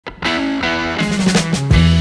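Background music: a band track with steady pitched instruments and drum hits.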